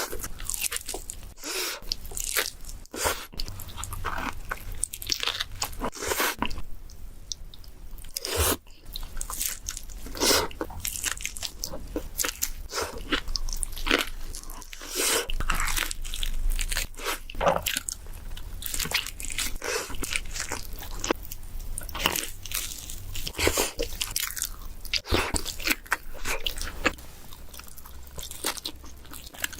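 Close-miked bites of pizza: crisp crust crunching and tearing, then chewing and mouth noises, repeated bite after bite at an irregular pace.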